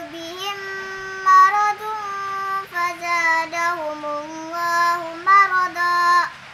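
A young girl reciting the Qur'an in Arabic in a melodic chanted style, drawing out long held notes that rise and fall in pitch; the phrase ends about six seconds in.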